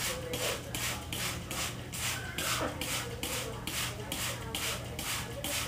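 Water hissing in quick, even pulses, about four a second, as it is sprayed over a parrot being bathed, with a faint wavering tone underneath.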